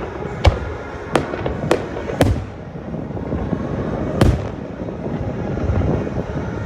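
Aerial firework shells bursting: five sharp reports in about four seconds, the first four in quick succession and the last after a short pause.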